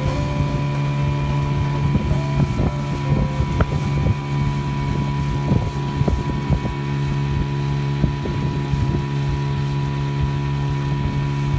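Outboard motor running at a steady cruising speed, driving a small aluminum boat, with irregular thuds of the hull slapping small waves and some wind on the microphone.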